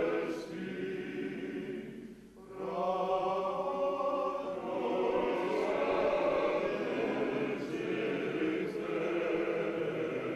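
Men's choir singing a cappella, with a short break between phrases about two seconds in before the singing resumes.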